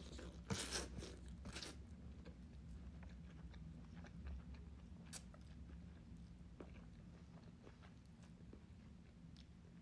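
A person chewing ramen noodles close to the microphone. A cluster of louder wet mouth clicks comes in the first two seconds, then sparser, fainter chewing clicks over a steady low hum.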